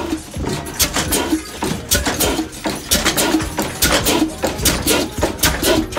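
Old horizontal stationary engine with a large flywheel, running with a regular thudding beat of about three strokes a second over a steady low rumble.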